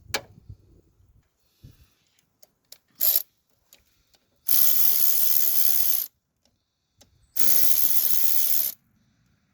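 Socket ratchet working a battery-cable terminal nut: a short click, then two quick runs of rapid ratcheting of about a second and a half each.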